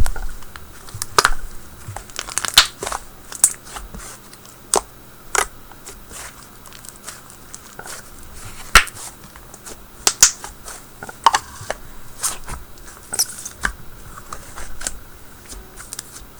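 Hands squishing and pressing a wet icy slime, giving irregular sharp crackles and pops: the sizzly sound of an icy-textured slime.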